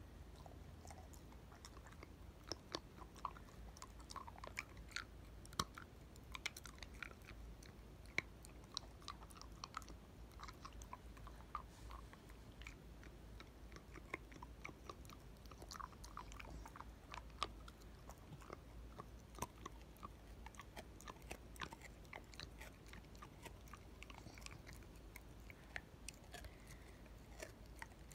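A corgi gnawing and chewing on a chew treat held between its paws: a stream of faint, irregular crunches and clicks.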